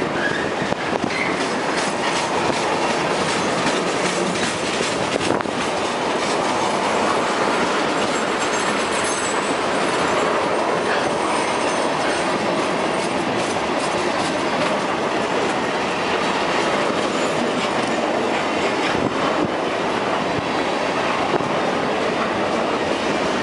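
Freight train rolling past at close range: a steady clatter of wheels over the rail, with a faint, brief wheel squeal about nine seconds in.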